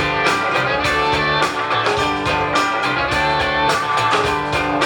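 Live rock band playing an instrumental passage between sung lines, with guitars strumming over a steady drum beat.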